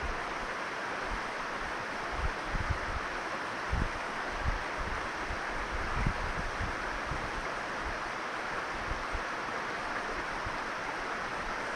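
Steady rush of a shallow mountain stream flowing over rocks, with occasional low thumps of wind buffeting the microphone.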